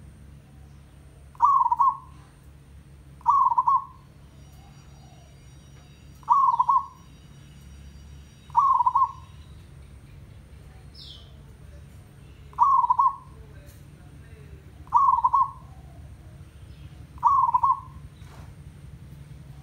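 Zebra dove cooing: seven short, loud, trilled coos, about two seconds apart.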